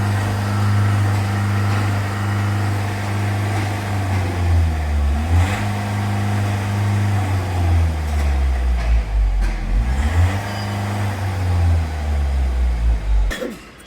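Mahindra Marazzo diesel engine running with its rail pressure regulator (DRV valve) connector unplugged. The engine speed sags and comes back up twice, and the engine cuts off near the end. With the connector off, the engine runs quieter, but the fault code does not clear, so the fault is not fixed.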